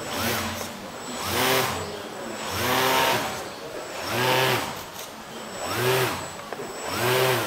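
Electric motor and propeller of a homemade radio-controlled model plane, throttled up and down over and over. The whine rises and falls in pitch about every second and a half.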